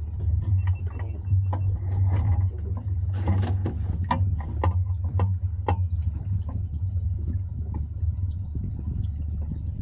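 Fishing boat's engine running with a steady low drone, with a run of sharp clicks and knocks in the first half or so, then only the drone.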